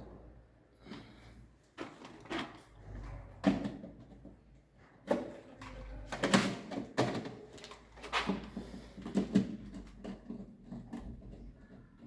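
Circuit breakers being handled and fitted into a distribution board: irregular plastic clicks and knocks, some sharp and loud.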